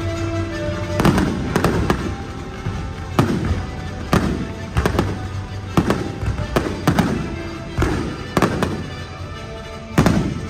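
Fireworks bursting overhead: about a dozen sharp bangs in quick, irregular succession, some in close pairs and triplets, over the show's music.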